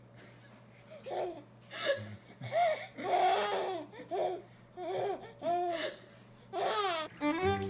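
Laughter: a string of about eight short vocal bursts, each rising and falling in pitch, starting about a second in.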